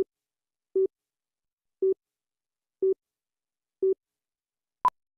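Slate countdown beeps: five short, low beeps, one each second, then a single shorter, higher pip near the end. The pip is the two-pop that marks the last beat of the countdown.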